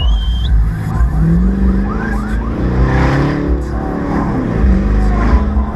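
A 2012 Chevrolet Camaro SS's 6.2-litre V8 on the move, its note climbing for a second or two and then dropping away, over a constant heavy low road rumble, with oncoming cars passing close by.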